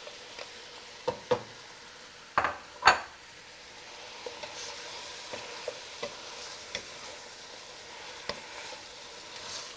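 Ground beef frying with onions in olive oil in a stainless steel pot, sizzling steadily while a wooden spatula stirs and breaks it up. A few sharp knocks of the spatula against the pot come between about one and three seconds in, the loudest just before three seconds.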